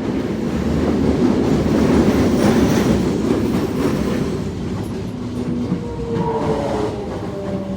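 Toei Asakusa Line 5300 series train running, heard from on board. The rumble and clatter of the running noise swells and then eases, and from about five seconds in a whine slides down in pitch as the train slows.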